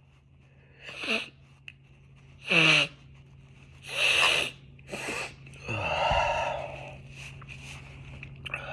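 A series of about five forceful, wet nose blows from a congested, allergy-stuffed nose, some ending in a falling honk. The loudest comes about two and a half seconds in and the longest, about a second, near the end.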